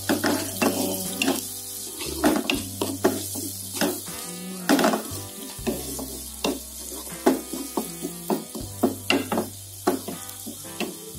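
Carrots stir-frying in oil in a wok, with a steady sizzle and a spatula scraping and knocking against the pan at irregular strokes, about one or two a second.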